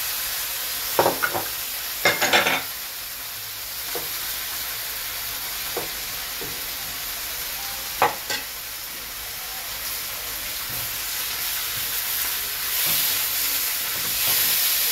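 Sliced tomatoes and aromatics sizzling as they are stir-fried in a metal wok, a steady frying hiss, with a few sharp knocks and scrapes of the spatula against the pan, a quick cluster of them about two seconds in and another single one near the middle.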